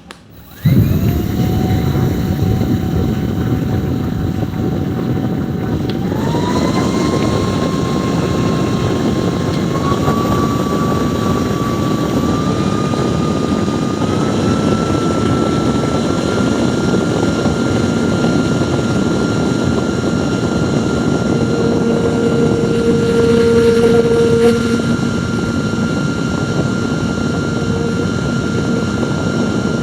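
High-speed electric fan blowing: a loud rush of air with a motor whine that starts about half a second in, steps up in pitch several times over the first fifteen seconds, then holds steady. A lower hum joins for a few seconds a little past the twenty-second mark.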